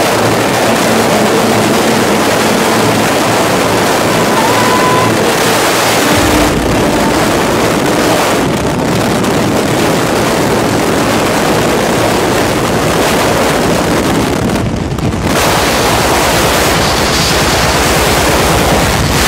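Freefall airstream rushing over a skydiving camera's microphone: a loud, steady wind noise that gains a deeper rumble about six seconds in and eases briefly about fifteen seconds in.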